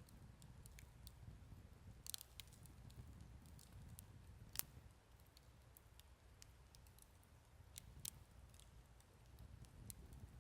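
Wood campfire crackling faintly, with scattered sharp pops, the loudest about four and a half seconds in, over a low steady rumble.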